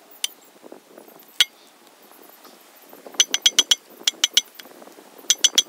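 Metal-on-metal clinking from the clutch end of a Honda AC compressor being taken apart: a few single sharp clinks, then three quick runs of four or five ringing clinks in the second half.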